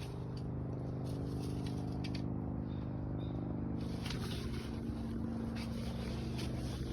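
An engine running steadily at a low, even speed, with light scraping and crackling over it.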